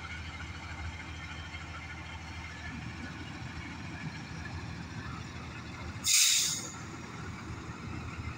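Fire engine's diesel engine idling steadily, with one short, loud hiss of air brakes venting about six seconds in.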